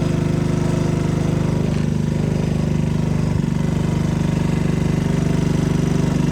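Talon GSX150's 150cc engine idling steadily and still running after the kill switch has been pressed, which the owner puts down to a kill switch that is not dependable. A light click comes about three and a half seconds in.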